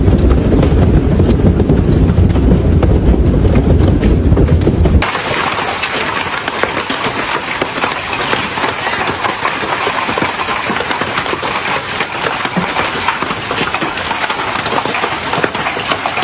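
Wind buffeting the microphone in a heavy storm, a loud low rumble; about five seconds in it cuts abruptly to rain and hail pelting down, a dense steady patter of fine ticks.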